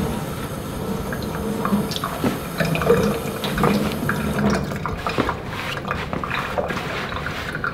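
Kitchen faucet running onto a water-resistant fabric pillow held in a stainless steel sink, the water spattering and running off its cover. The tap stops about four seconds in, leaving drips and the sounds of the wet pillow being handled.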